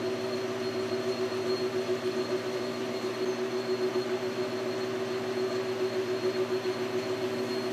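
Precision Matthews metal lathe running steadily, its spindle drive giving an even hum with a few fixed tones, while a small carbide boring bar cuts to enlarge the hole in a washer held in the chuck.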